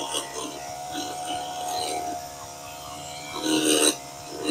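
Wild Badger walk-behind power edger's small four-stroke engine running with a steady buzz, getting louder for about half a second around three and a half seconds in.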